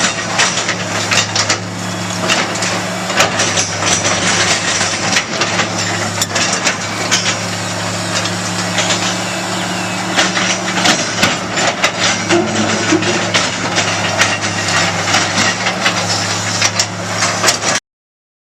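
Excavator engine running steadily while concrete, block and brick rubble cracks, crunches and clatters as the machine breaks up and scoops the masonry foundation. The sound cuts off abruptly near the end.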